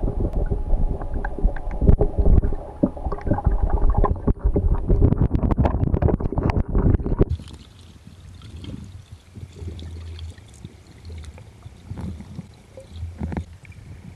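Underwater sound of a feeding frenzy of piranhas (Pygocentrus cariba): a dense crackle of clicks and knocks as the fish tear at meat. It cuts off about seven seconds in to a quieter low hum with a few scattered clicks.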